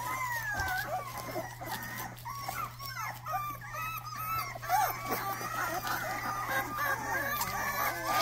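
Several young Rottweiler puppies whining and squealing at once: many short, thin, high cries that bend up and down and overlap. A steady low hum runs underneath.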